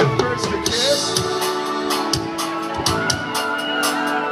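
Live rock band playing through an outdoor stage PA, heard from the crowd: drums keep a steady beat with regular cymbal hits under sustained guitar and keyboard tones.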